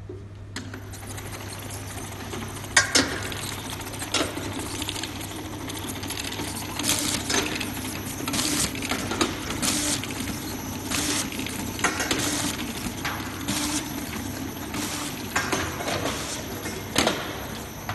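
Automatic stick-on labeling machine running, with a steady hum and hiss from its conveyor and drives. Glass bottles clink and knock against the guides, star wheel and each other at irregular intervals.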